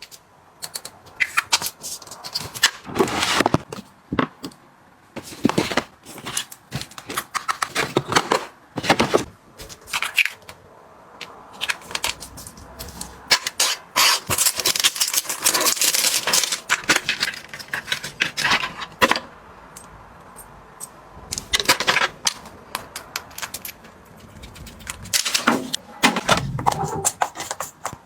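Items being handled and set down while organizing: an irregular run of clicks, taps and light clattering, with a longer rustling stretch around the middle.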